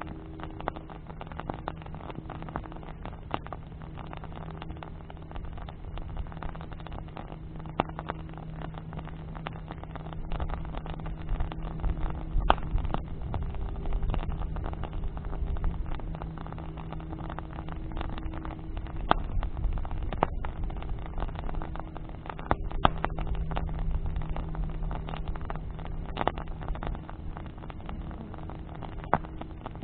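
Wood bonfire crackling, with frequent sharp pops and snaps. A steady low drone hums underneath throughout, and a low rumble swells about a third of the way in.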